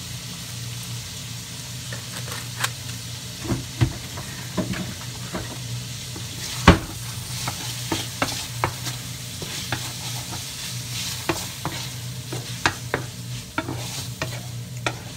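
Shrimp and squid sizzling in a nonstick frying pan while a wooden spatula stirs them, with frequent scrapes and taps on the pan and one louder knock about halfway through. A cooker-hood extractor fan hums steadily underneath.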